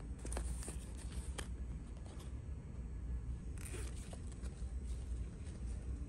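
Bags being handled on a shop display: a clear plastic pouch and fabric bags crinkle and rustle, with a few light clicks and a longer rustle about three and a half seconds in, over a low steady hum.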